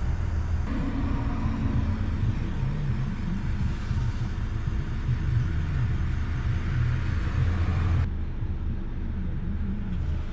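Steady low rumble with a hiss from a heating tool over it, as soldered wire splices on a connector are heated to melt the solder and seal the joints; the hiss cuts off suddenly about eight seconds in.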